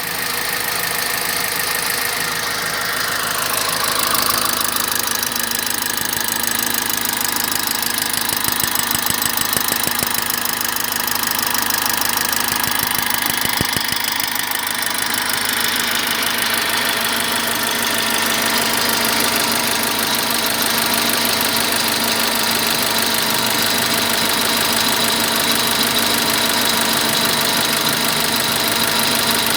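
Toyota Calya's 1.2-litre four-cylinder petrol engine idling after a morning cold start, running rough, like a diesel.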